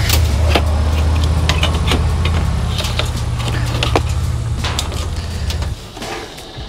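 Steady low mechanical hum, like an idling engine, that cuts off about six seconds in. Over it come scattered clicks and light metallic clinks of parts being handled.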